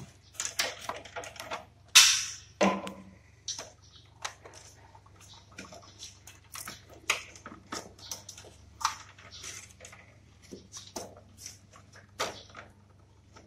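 Handling noise from work on an air conditioner indoor unit's wiring: irregular clicks, scrapes and rustles of plastic parts and cables being handled, with the loudest knock about two seconds in.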